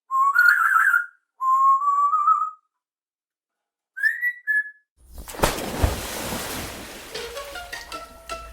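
Whistled notes: a long wavering whistle, a second long one slowly rising in pitch, and after a pause two short higher whistles. About five seconds in, a sharp hit and a noisy wash give way to light plucked music.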